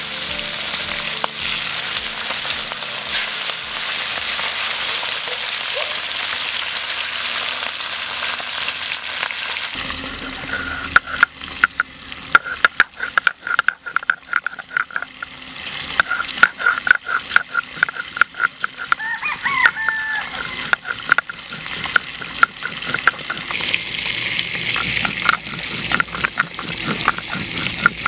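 Fish pieces frying in hot oil in a wok, a steady sizzle. About ten seconds in it gives way to a hand-held stone grinding red chillies on a flat stone slab: irregular knocks and scraping. A rooster crows once, past the middle.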